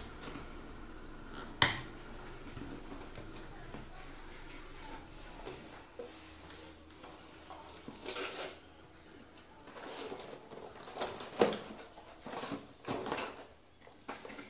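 Cardboard smartphone box being opened and handled: a sharp click about a second and a half in, then intermittent scraping and rustling of cardboard as the lid and inner tray are moved, with louder scrapes and taps in the last few seconds.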